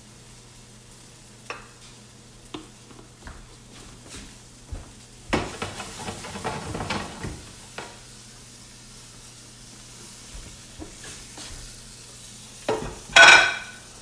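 Pieces of floured, fried chicken going back into a hot pan of oil and sizzling, with scattered clicks and taps of handling. There is a longer spell of sizzling about five seconds in and a louder burst near the end.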